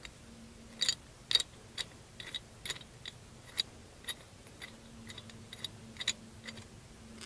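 Steel lifting chain clinking in the hands as it is wrapped around a log and hooked up, in irregular light metallic clicks, over a faint steady hum.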